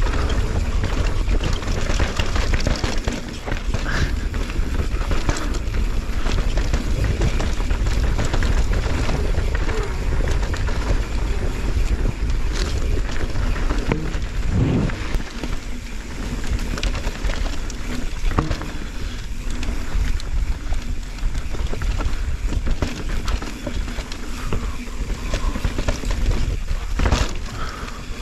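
Mountain bike ridden fast down a dirt trail, heard from a helmet- or chest-mounted action camera: steady wind rush over the microphone with tyre noise and the bike's rattle. Knocks and clatters come through now and then, a heavier one about halfway through.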